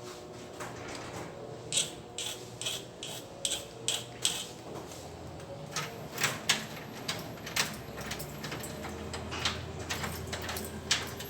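Irregular small metallic clicks and ticks, a few a second, from hand work on a tetra-type key that is being corrected, over a faint steady hum.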